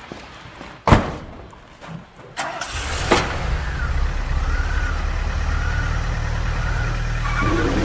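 A DeLorean's gull-wing door slams shut about a second in. The engine starts about two and a half seconds in, with a second slam just after, then idles steadily. Near the end a rising sweep of sound begins.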